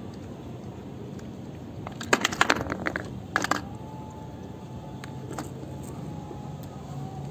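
Sharp clicks and clatter of small hard plastic and metal parts as a plastic toy-car wheel is worked apart with pliers: a quick run of clicks about two seconds in, then two more a second later.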